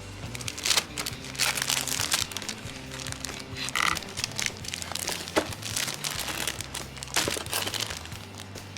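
Packaging crinkling as it is handled during an unboxing, in irregular bursts of crackle, with a brief squeak about four seconds in.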